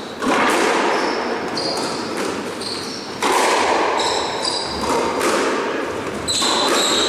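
Squash rally: the ball struck by racquets and smacking off the court walls, three loud hits about three seconds apart, each ringing on in the hard, echoing court. Court shoes give short squeaks on the wooden floor between the hits.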